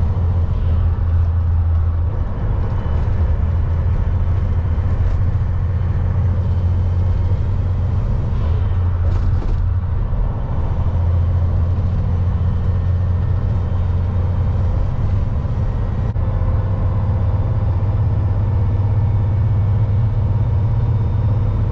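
Tractor-trailer's diesel engine and tyre noise droning steadily inside the cab while cruising at highway speed, with a brief hiss about nine seconds in.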